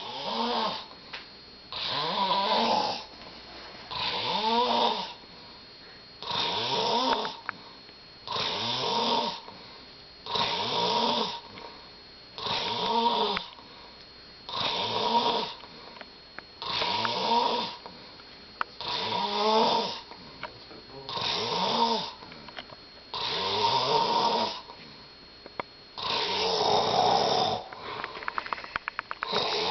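A person snoring, one snore about every two seconds, each with a rough, wavering pitch. Near the end it breaks into a quick rattling run of clicks.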